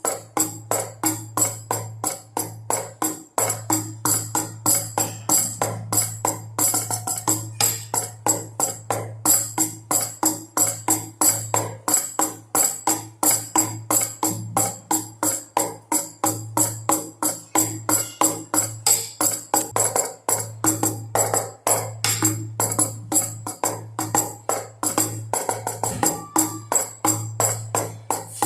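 A baby rattle shaken with drum beats in a steady, even rhythm, about three strokes a second.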